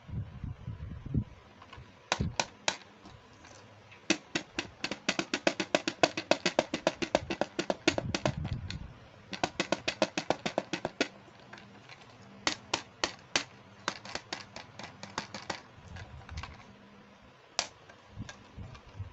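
Runs of sharp, rapid clicks and taps, about five a second, from hard plastic toy pieces being handled. There are a few soft thumps at the start and in the middle.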